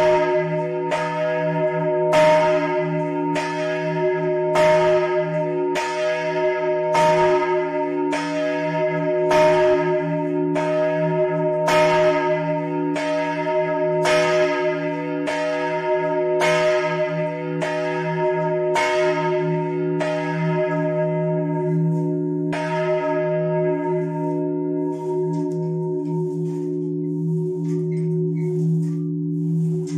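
The parish's largest church bell, tuned to E-flat and recast by Capanni in 1952, swung by rope in a full peal, its clapper striking about once a second over a steady deep hum. The strikes slow and stop a little over twenty seconds in as the bell is brought to rest, and the hum rings on.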